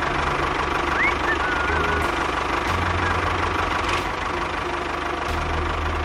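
Tractor engine running steadily, with a few short chirps about a second in and a few faint ticks.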